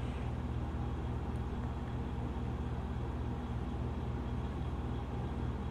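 Steady low hum made of a few even low tones with a slight regular pulsing, unchanged throughout.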